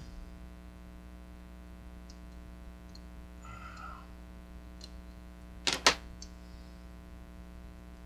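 Steady mains hum with a few faint ticks and a brief rustle, then two sharp clicks a fraction of a second apart about six seconds in, from small hand tools being handled at a soldering bench.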